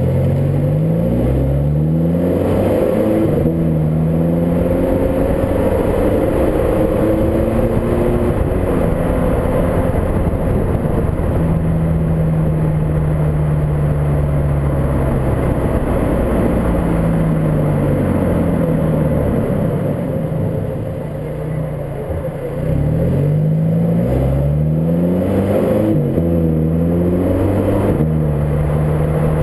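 Volkswagen Golf GTI Mk5's turbocharged 2.0-litre FSI four-cylinder pulling the car along, its pitch rising and falling through several gear changes, under heavy wind noise on the microphone.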